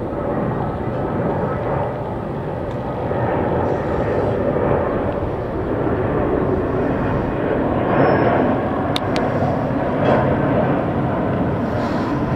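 Airbus A330-300 airliner passing low overhead on approach with its landing gear down, its Rolls-Royce Trent 700 turbofans giving a steady jet rumble that swells slightly about eight seconds in. Two faint sharp clicks come about nine seconds in.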